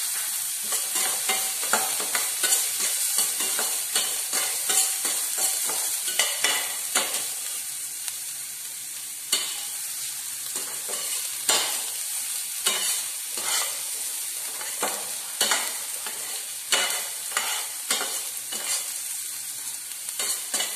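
Diced carrots, beans and onion sizzling in oil in a stainless steel pan, stirred with a perforated metal spatula that scrapes and clinks against the pan again and again over a steady frying hiss.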